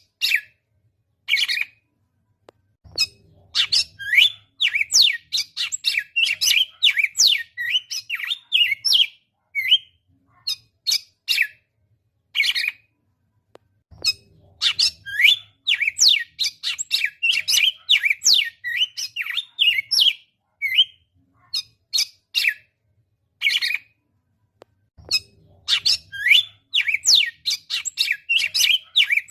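Papa-capim (seedeater) singing: long bouts of fast, chattering high chirps and downslurred notes, with single calls between bouts. The same bout repeats about every 11 seconds.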